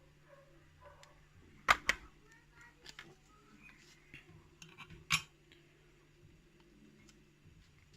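Small metal parts of a gutted pin-tumbler lock clicking and clinking as they are handled: two sharp clicks close together a couple of seconds in, another about five seconds in, and lighter ticks between.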